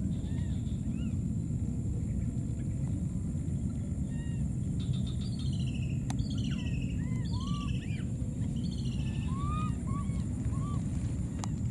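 Short high chirping calls and squeaks, thickest in the middle, with a run of quick falling high calls, over a steady low rumble and a thin steady high hiss.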